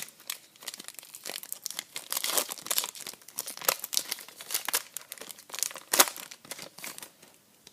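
Trading-card pack wrapper crinkling and tearing as it is opened by hand: irregular crackles with a louder crack about six seconds in, stopping shortly before the end.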